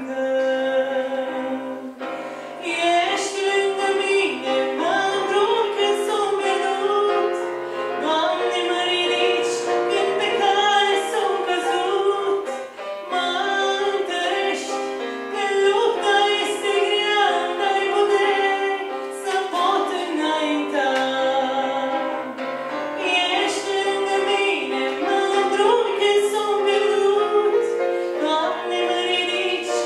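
A woman singing a slow song into a handheld microphone, holding long notes, over instrumental accompaniment.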